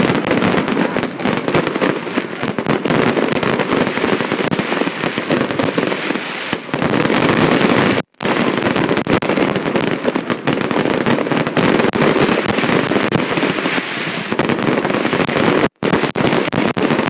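Firework display barrage: many bangs and dense crackling from aerial shells running together into a continuous loud din. The sound cuts out completely twice, briefly, about 8 and 16 seconds in.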